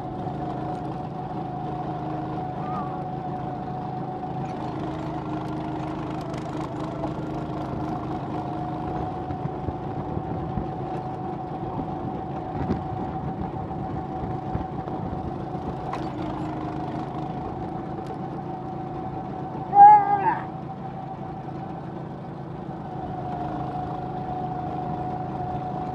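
Two-seater go-kart's motor running at a steady pace, a held whine heard from the seat while riding. About three-quarters of the way through comes one short, loud squeal.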